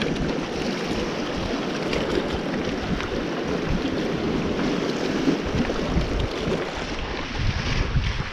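Water lapping and washing, with wind buffeting the microphone in uneven gusts.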